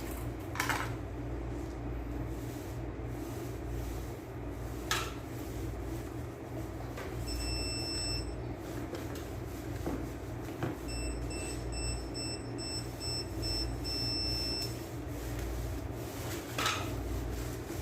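Fujikura fiber-optic fusion splicer beeping: one high electronic tone lasting about a second, then a run of short repeated beeps for several seconds, over a steady low hum. Three short sharp clicks, near the start, about five seconds in and near the end.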